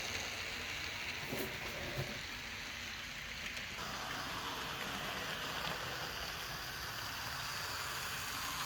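AHM/Rivarossi model 2-8-2 Mikado steam locomotive running along the track: a steady whirr from the Rivarossi motor in its tender and the drive, with wheel noise on the rails, pretty smooth and not too noisy. A couple of light clicks come at about a second and a half and two seconds in.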